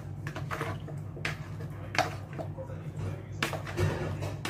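Raw pork spare ribs being mixed in a plastic bowl by hand and with a utensil for marinating: irregular wet squishes and clicks of the utensil against the bowl, over a low steady hum.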